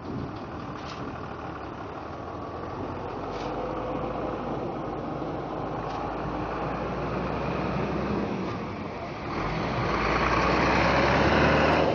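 A heavy vehicle engine running steadily, growing louder from about nine seconds in.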